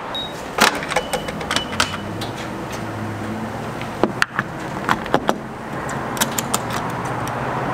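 Gas pump nozzle handled at a boat's fuel filler: a series of sharp clicks and knocks over a steady low hum.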